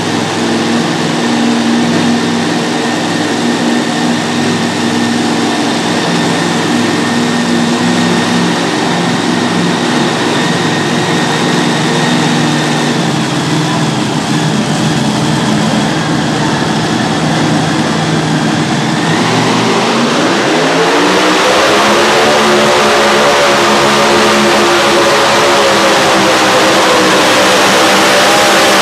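Light modified pulling tractor's supercharged engines running at a steady idle, then about two-thirds of the way through revving up and holding at higher revs as the tractor comes up to the sled.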